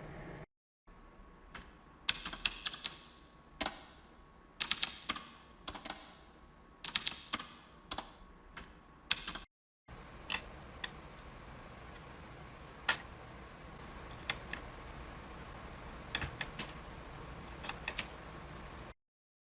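Typing on a computer keyboard in short bursts of rapid key clicks. After a brief cut, scattered single clicks follow over a steady low electrical hum.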